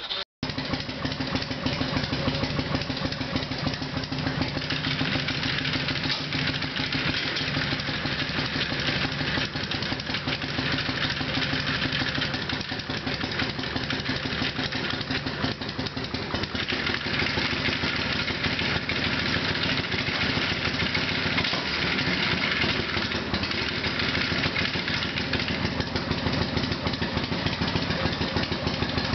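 1984 Harley-Davidson FXWG's V-twin engine idling steadily in gear, the clutch partly let out so the bike just begins to creep while the rider tries to shift into neutral. A dragging clutch makes neutral hard to find on this bike.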